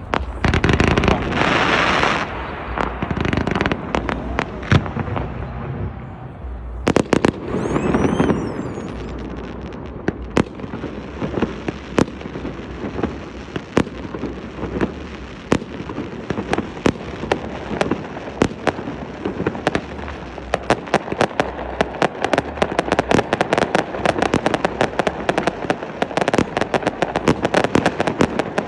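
Fireworks display: loud bursts of shells in the first few seconds and again about seven seconds in, then a stream of rapid crackling pops that grows denser toward the end.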